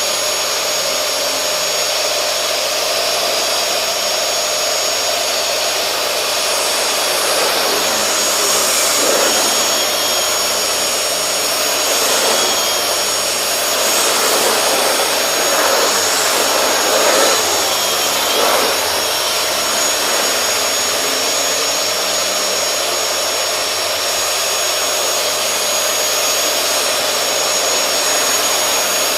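Vacuum cleaner running steadily on carpet: a constant loud rushing sound with a thin high whine. Its sound wavers a few times in the middle as it is worked over the carpet.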